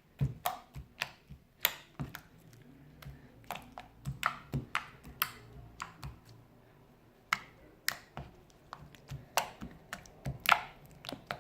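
Sticky homemade glue slime being squeezed and poked by hand, giving an irregular string of sharp pops and clicks, about two a second.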